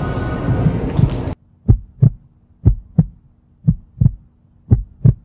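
Heartbeat sound effect: paired low thumps (lub-dub), four beats about a second apart over a faint steady hum. It starts just after a loud noisy background cuts off suddenly about a second in.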